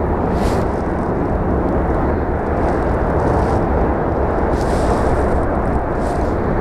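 Wind buffeting the microphone: a steady low rumble with no pitch to it.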